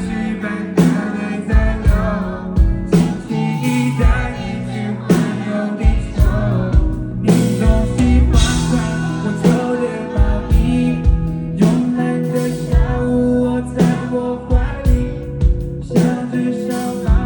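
Live pop song: a singer's voice over a band, with the drums marking a steady beat of about one hit a second.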